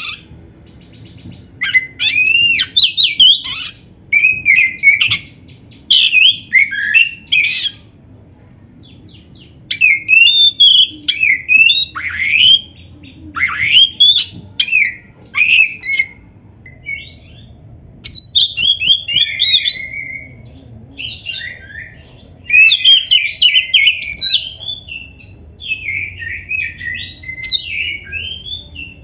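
Oriental magpie-robin (kacer) singing a loud, varied song of quick whistled notes sweeping up and down in pitch. It sings in bursts with short pauses, becoming almost continuous in the second half, and is in full song with imitated 'isian' phrases.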